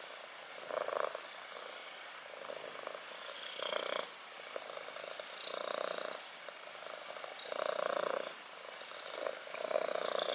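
Kitten purring steadily, swelling in loudness about every two seconds.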